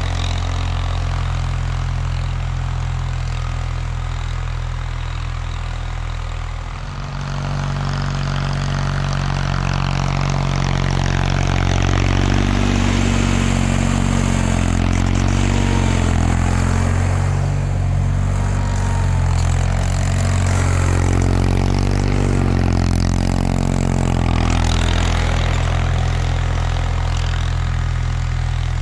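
1979 Bolens HT-23's 23 hp K582 opposed-twin engine running steadily under load while it drives its snowblower. The engine note steps up and fills out about seven seconds in.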